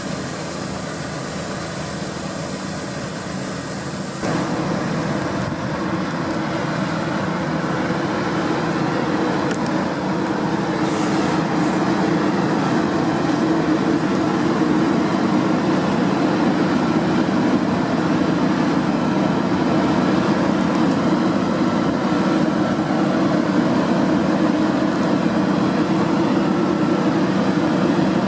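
Deutz-Fahr 6060 combine harvester running steadily as it harvests wheat. The noise steps up sharply about four seconds in and then grows slowly louder.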